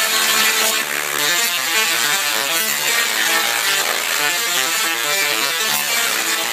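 A 10 kVA dual-resonant solid-state Tesla coil (DRSSTC) discharging into the air, its sparks buzzing out a run of notes that step up and down in pitch as it is played from a MIDI controller.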